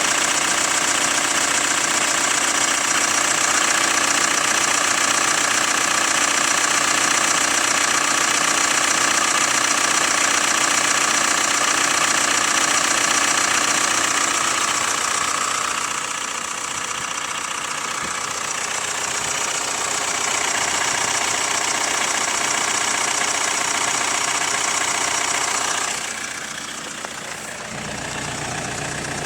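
Hyundai ix35 2.0 CRDi diesel engine idling cold, with a light clacking knock that the owner suspects comes from the hydraulic lifters or the timing chain tensioner. The sound gets quieter about halfway through, and again near the end.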